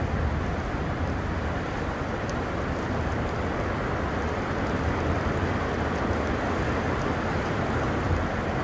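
Heavy rain pouring steadily during a thunderstorm, a dense rushing noise with a deep low rumble underneath and a few faint drip ticks.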